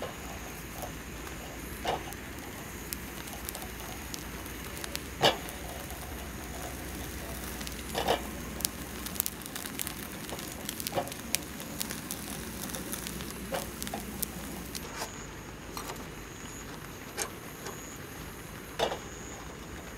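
A thin dried piece of food toasting on a wire grill over a portable butane stove: sharp crackles and pops every few seconds over a steady hiss.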